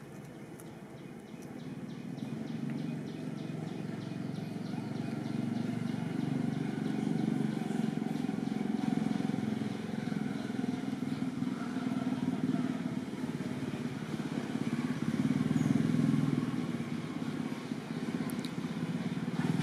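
A motor vehicle's engine running off-picture, a steady low rumble that grows louder over the first few seconds and is loudest about sixteen seconds in.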